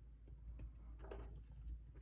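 Faint handling noises of trading-card packaging and cards: a few light taps and rustles, bunched together about a second in, over a low steady background hum.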